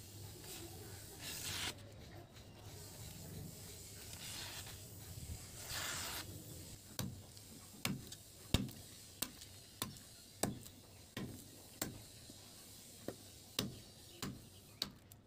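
A kukri blade slicing through sheets of paper with a few soft swishes. It then chops into a wooden log, about a dozen sharp chops roughly two-thirds of a second apart.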